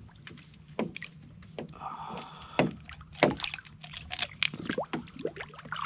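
Water sloshing and splashing at the boat's side as a Goliath grouper, held by a lip gripper, moves its head in the water while being released. It comes as a string of short, irregular splashes.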